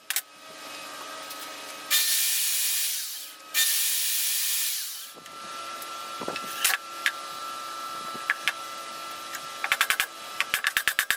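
Two loud bursts of spraying hiss, each about a second and a half long, back to back about two seconds in. Then a few sharp clicks, and a rapid run of clicks near the end.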